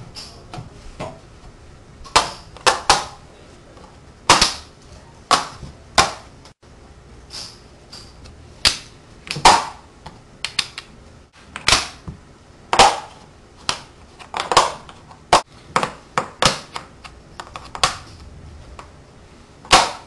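Magnetic wooden blocks snapping together and onto a steel sheet: a long irregular run of sharp wooden clacks, some in quick pairs or threes.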